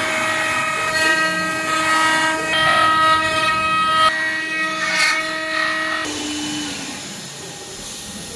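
Multi-spindle CNC wood router running, its router spindles whining as the bits carve wood: a chord of steady high tones over cutting noise. About six seconds in the whine cuts off and a quieter, lower hum remains.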